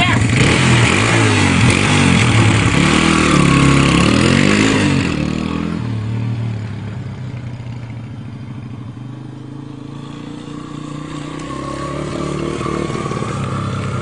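Honda four-stroke dirt bike engine running just after a cold start on a freshly replaced cam chain, revved up and down several times for about five seconds. Its sound then fades as the bike rides away and grows louder again as it comes back near the end.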